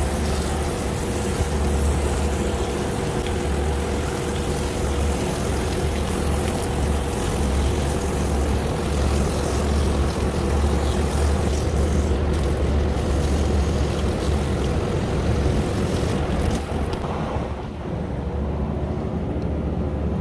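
Steady rushing spray of a hose washing down a large rooftop refrigeration rack condenser coil, over a continuous low rumble, with a brief dip in level near the end.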